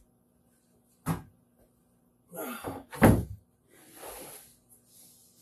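Pieces of wood being handled on a bench: a short knock about a second in, a brief scrape, then a heavy thunk about three seconds in as a piece is set down, followed by a softer rustle.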